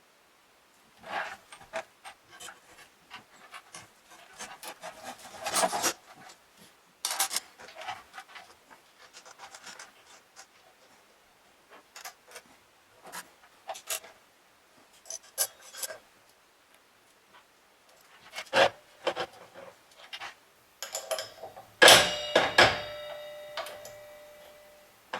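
Rubbing, scraping and clicking as a cordless mitre saw and its parts are handled during unboxing and setup. Near the end comes a single loud metal clank that rings briefly.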